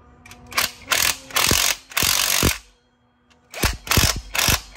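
Impact wrench spinning bolts down in short bursts, with two longer half-second runs in the middle and a quick series of bursts near the end. It is only snugging the cage bolts against the engine in a crossing pattern, not tightening them.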